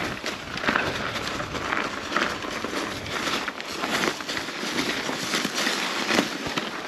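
Canyon Spectral mountain bike riding along a forest trail: a steady rush of tyre and trail noise broken by many small crackles and rattles.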